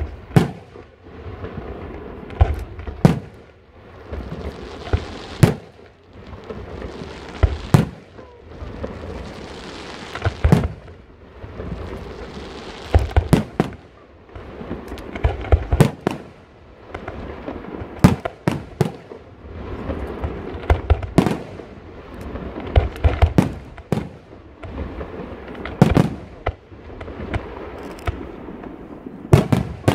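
Aerial firework shells bursting in a continuous sequence: sharp booms about one to two seconds apart, some in quick clusters of two or three, over a steady hiss and crackle from the burning effects.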